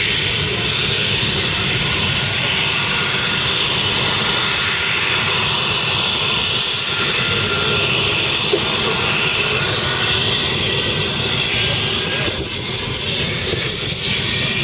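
English Electric Lightning's twin Rolls-Royce Avon turbojets running at low power as the jet begins to taxi: a loud, steady jet whine with several high whistling tones.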